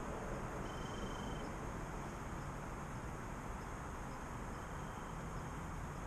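Quiet woodland background: a steady hiss with a faint, even high hum, and twice a short thin whistle-like tone.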